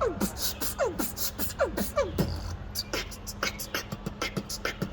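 Vocal beatboxing: quick sweeps that fall in pitch, about two a second, over fast hi-hat-like mouth clicks. From about halfway in, the clicks carry on alone.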